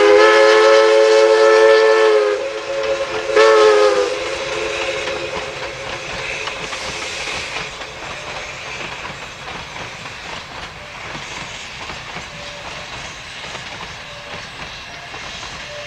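Steam locomotive whistle blowing a chord of several tones: one long blast, then a short one about three seconds in. After it, the steady sound of the train running past.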